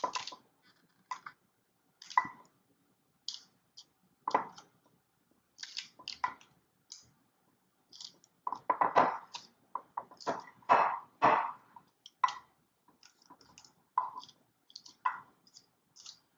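A spoon scraping and tapping in a container as it spreads melted chocolate evenly over the bar: irregular short clicks and scrapes, busiest in the middle.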